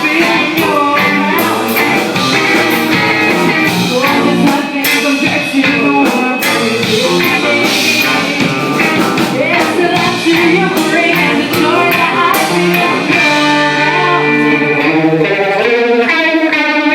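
Live rock band playing, with guitar and singing over a loud, steady mix.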